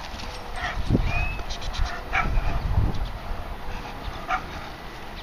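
A 9-month-old German Shepherd puppy barking a few short times, about once a second early on and again near the end, with a brief high whine after the first bark. It is a young dog barking at the helper during protection work.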